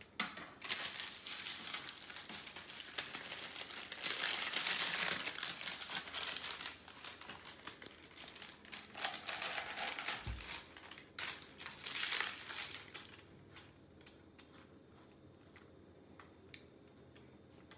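Parchment paper crinkling and rustling as it is handled around a pressed granola-bar slab, loudest about four to five seconds in, with one brief low thud about ten seconds in. From about two-thirds through it quietens to faint ticks as a knife begins cutting the slab.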